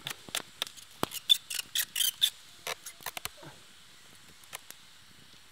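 Wood fire crackling and popping: quick irregular snaps, dense for the first three seconds or so, then only a few scattered pops. The snapping is the water inside the burning branches boiling off.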